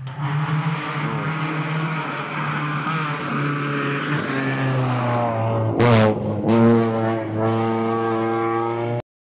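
Rally car engine at high revs as the car drives along a wet gravel stage. The engine note dips and climbs again about six seconds in, where it is loudest, then holds high before cutting off abruptly near the end.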